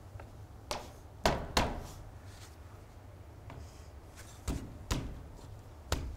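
A hammer tapping a folded corner of metal valley flashing to flatten it: six sharp, uneven knocks on sheet metal, three in the first two seconds and three more in the second half.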